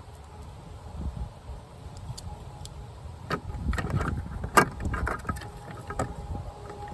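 Scattered small clicks and knocks of screws and a screwdriver being worked into a van's plastic interior door panel, with one sharper click about four and a half seconds in.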